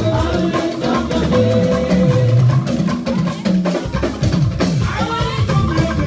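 Live band music with a busy drum beat and voices singing, from a dancing church congregation.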